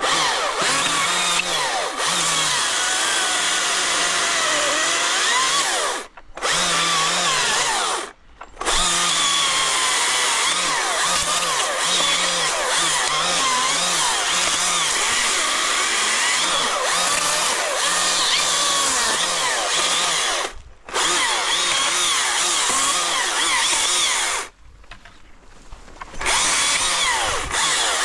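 Husqvarna 542i XP battery chainsaw running and cutting through thin conifer stems and branches, its whine wavering as the chain takes load. It stops briefly four times between cuts: three short breaks and a longer pause near the end.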